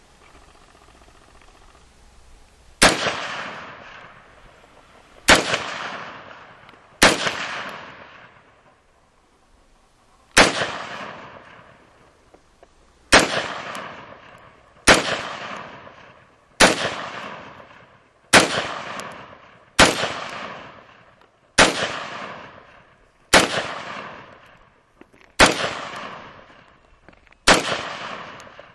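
Australian T2 MK5 5.56 mm rifle fired in single shots: thirteen shots, the first about three seconds in, then one every one and a half to three seconds, each followed by a fading echo.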